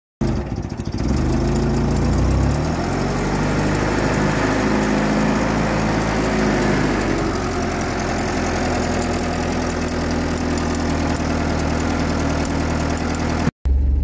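UAZ-469 engine running: its pitch wanders over the first couple of seconds, then it settles into a steady idle.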